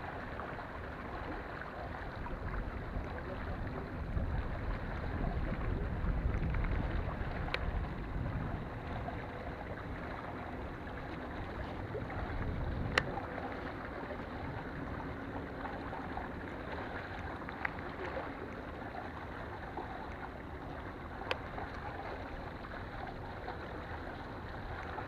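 Outdoor wind and water noise: a steady wash with a low rumble that swells for a few seconds near the start and again around the middle. A few sharp clicks fall scattered through it, the loudest about halfway.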